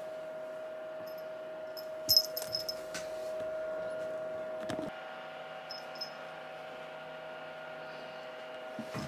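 Small bell on a kitten's collar jingling in several short bursts, loudest about two seconds in, over a steady hum.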